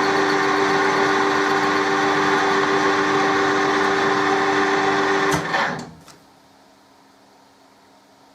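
Colchester lathe running steadily with a machine hum, then switched off with a clunk about five seconds in and quickly running down to a faint background hum.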